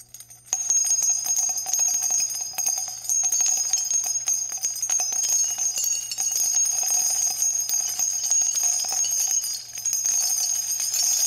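Logo-intro sound effect: a steady shimmer of high, bell-like ringing with many small clicks and ticks, starting about half a second in.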